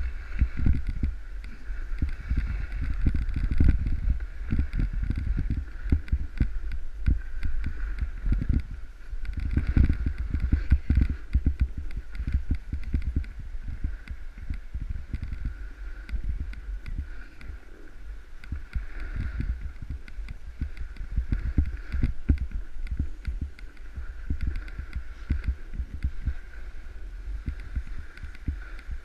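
Snowboard riding over snow, heard through a body-worn camera: a low rumble with rough wind buffeting on the microphone, heavier in the first half and easing later, with a steady high-pitched hum behind it.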